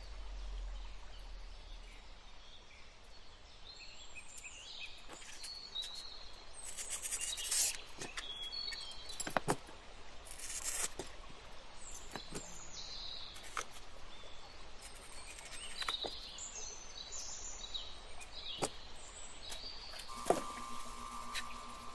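Cut pieces of stained glass being handled and set down on a worktable, with scattered light clicks and short high squeaks and clinks. A steady hum starts near the end.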